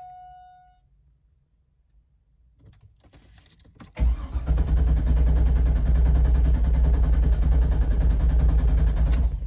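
A chime fades out at the start; about four seconds in, the C5 Corvette's starter cranks the V8 steadily for about five seconds and stops, the engine never firing because the fuel injector fuses are pulled. It is being turned over only to build oil pressure after an oil cooler install, and the pressure has not yet come up.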